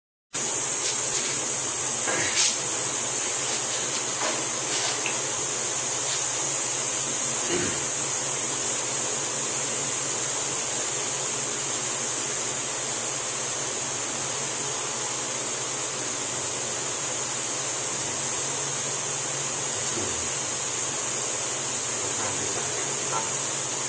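A steady, high-pitched hiss, with a few faint knocks in the first eight seconds.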